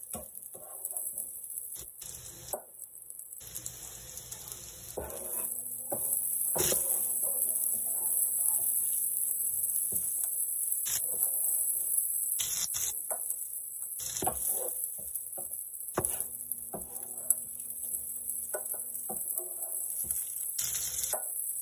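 A metal spatula scrapes and knocks across an electric griddle and against a stainless steel bowl as cooked steak and chicken are pushed off, with sharp clicks at irregular intervals. Under it runs a steady high sizzling hiss from the hot griddle.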